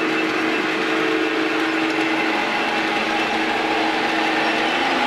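Model diesel locomotive with a DCC sound decoder running on the layout's track: a steady engine drone from the loco's speaker over the whirr of the small motor and the wheels on the rails.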